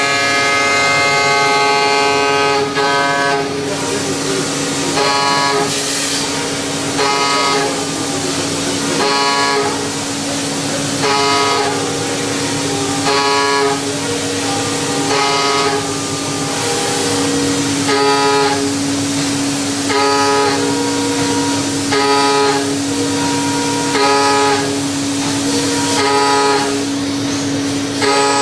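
Mazak VTC-300C vertical machining center cutting: a steady whine runs throughout, and a shrill, pitched squeal with many overtones recurs about every two seconds, as on each cutter pass.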